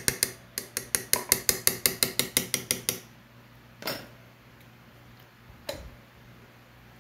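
Metal spoon clinking rapidly against a glass jar while scooping out pepper sauce, about seven sharp clicks a second for some three seconds, then two separate knocks.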